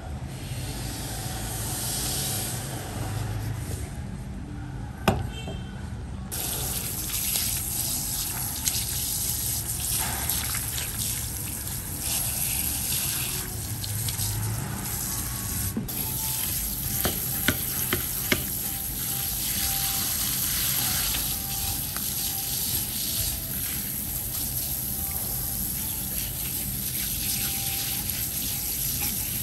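Tap water running and splashing over sea snail meat on a plastic cutting board as a knife scrapes and cuts it, getting louder about six seconds in. There are a few sharp knocks of the blade on the board.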